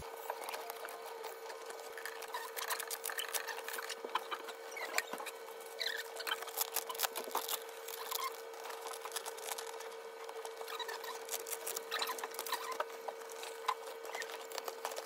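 Stiff fabric rustling and scraping, with many light clicks and taps, as a fabric storage organizer is fitted onto its black wire frame and handled. A faint steady hum runs underneath.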